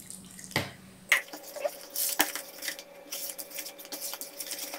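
Hand whisk beating thick cake batter in a plastic bowl: quick, irregular scraping and tapping against the bowl, after two sharp knocks in the first second or so.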